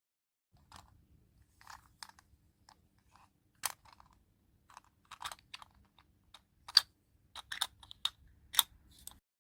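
Irregular taps, clicks and light crinkles of toy packaging being handled and opened, with the sharpest snaps in the second half.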